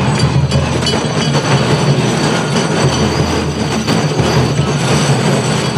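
The wheels of a heavy wooden river-boat festival float rumbling and grinding on stone paving as a team of bearers runs it around, with a continuous, loud rolling noise.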